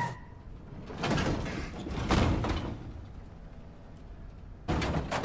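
Cartoon van sound effects: the vehicle's noise swells twice, then a sliding van door rolls with a clunk near the end.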